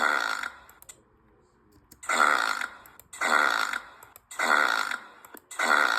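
A cartoon meerkat character belches five times, each belch lasting most of a second: one belch, a pause of over a second, then four more in a row about a second apart.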